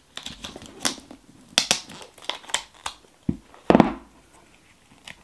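Paper cards and tape being peeled off a small plastic toy box and handled: irregular crinkling, rustling and clicking, with one louder knock of plastic a little under four seconds in.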